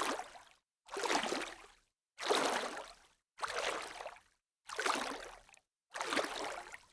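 Light splashes of water, one after another: about six separate splashes, each a second or less, starting sharply and fading out, with silence between them.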